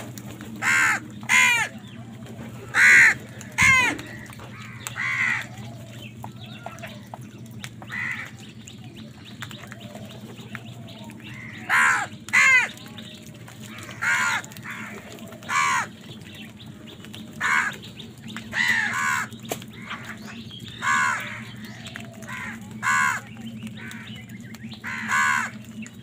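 House crows cawing, many birds calling one after another in short harsh caws, singly and in quick pairs, with a lull of a few seconds about a third of the way in.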